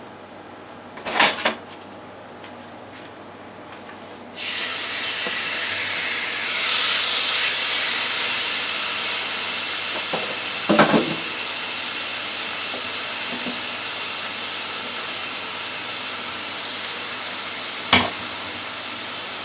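Chicken thighs dropped into hot olive oil in a frying pan, sizzling loudly from about four seconds in and then holding steady. There are a few short knocks: two about a second in, one near the middle and one near the end.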